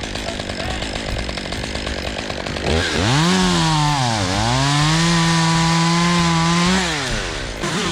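Two-stroke chainsaw idling, then revved up about a third of the way in and cutting for about four seconds, its engine pitch dipping once under load before holding steady, then dropping back to idle near the end.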